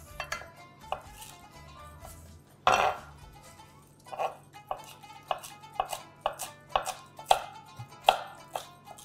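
Chef's knife finely chopping parsley on a wooden cutting board: sharp knocks of the blade on the board, about two a second from a few seconds in, with one louder knock earlier. Background music plays underneath.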